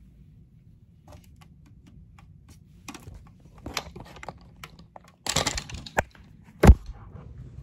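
Handling noise of the camera being reached for and picked up: scattered light clicks and taps, a brief burst of rubbing about five seconds in, and a sharp, heavy knock shortly before the end.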